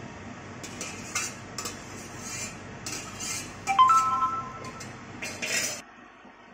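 A metal spatula scrapes curds out of a stainless steel bowl in repeated scrapes and clinks. About four seconds in, the bowl rings out briefly when the blade strikes it, the loudest moment. The scraping stops suddenly near the end.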